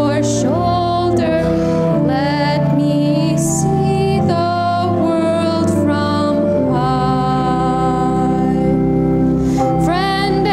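Congregation singing a hymn with organ accompaniment, the organ holding sustained chords under the voices.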